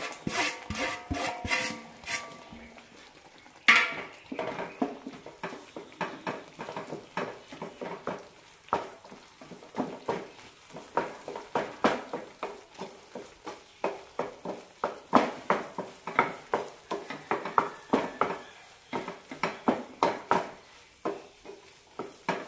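Wooden spatula stirring and scraping thick poha-flour dough against a nonstick pan, a run of short knocks and scrapes about twice a second as the flour mixed into boiling water turns into a crumbly idiyappam dough.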